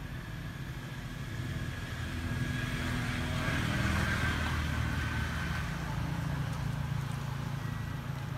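A motor vehicle passing by: a low engine hum that grows louder to a peak about four seconds in and then eases off, with a faint steady high tone running under it.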